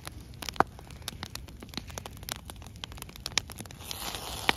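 Wood fire of charred stumps and logs crackling, with irregular sharp pops. There is a brief rustling noise near the end.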